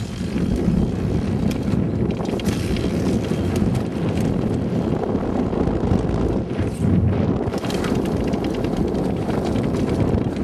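Wind noise on a helmet-mounted camera's microphone during a fast mountain-bike descent on a dirt trail, with tyre noise and frequent short rattles and knocks from the bike over rough ground.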